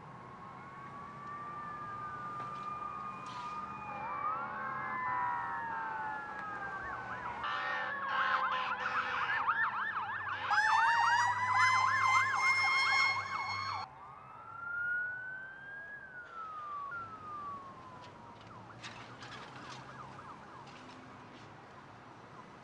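Several emergency-vehicle sirens wailing at once, their pitches sweeping slowly up and down and overlapping. They build into a fast yelp, the loudest part, which cuts off suddenly about fourteen seconds in. After that a slower wail rises and falls a couple more times and fades.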